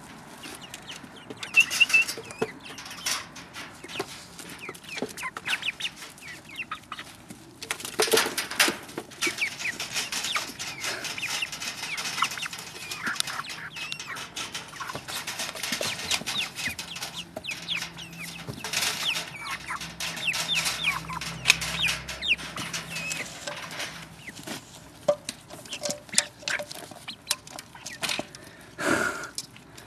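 Young Cochin chickens clucking, mixed with many short clicks and scuffles, busiest from about eight seconds in.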